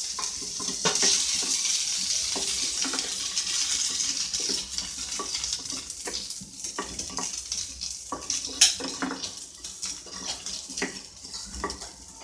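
Peeled boiled baby potatoes sizzling in hot ghee in a frying pan as they go in and are stirred, with a wooden spatula knocking and scraping against the pan. The sizzle is strongest in the first few seconds and eases off.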